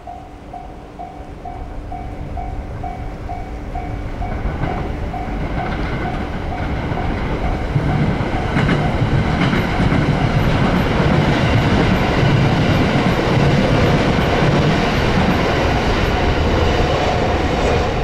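Level-crossing warning bell ringing about twice a second as an electric express train approaches. The train's running noise and wheel clatter build from about four seconds in and, from about eight seconds, drown out the bell while the train passes close by.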